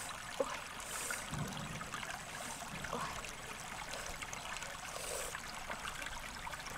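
Shallow stream running over rocks, a steady sound of flowing water.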